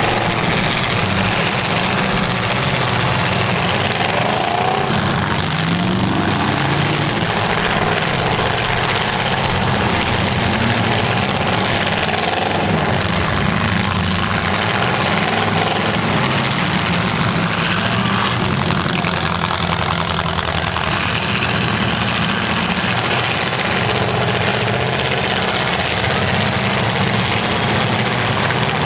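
Engines of several demolition derby cars running and revving, their pitch rising and falling over a constant loud din.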